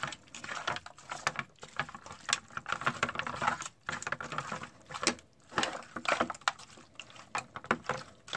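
A hand squelching and kneading raw meat in lime juice and seasoning in a metal pan: irregular wet squishes and smacks.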